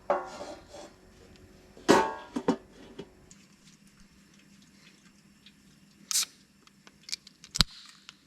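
Plucked-string background music for about three seconds, then it stops abruptly and a few sharp, isolated clicks follow, the loudest near the end.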